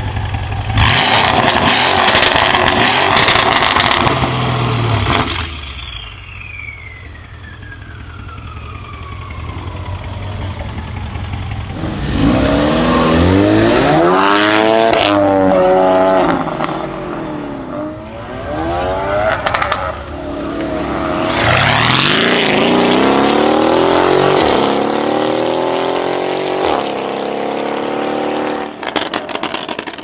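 V8 car engines being revved and accelerated hard through a loud custom exhaust. A parked Mercedes S63 AMG is revved for about four seconds, then a long falling whistle follows as the revs die away. After that, cars pull away twice with engine notes that rise through each gear and drop at the gear changes.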